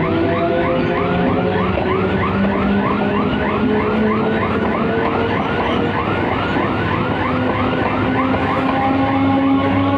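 BEML 12-coach electric multiple unit local train running along the platform, its traction motors whining and slowly rising in pitch over the running noise of the wheels. A high, short chirp repeats about three to four times a second.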